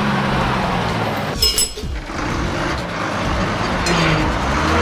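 Bus engine sound effect running as the cartoon school bus drives, with a brief high hiss and squeal about one and a half seconds in.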